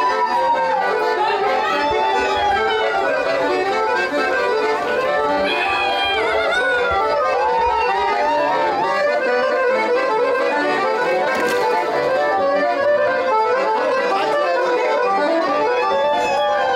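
Traditional Romanian wedding music led by an accordion, a lively, dense tune whose melody slides up and down over a steady accompaniment.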